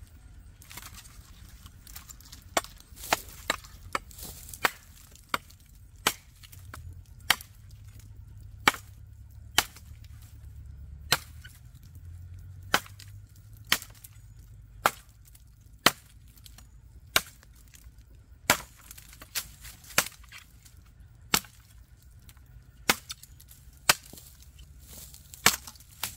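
A 10-inch KRM-P Bamboo Knife, an L6 steel chopper, chopping into a standing bamboo stem. Sharp single chops come about once a second, some in quick runs of two or three.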